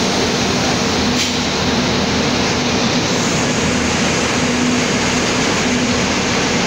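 Steady, loud din of textile spinning-mill machinery running, an even rushing noise with a constant low hum.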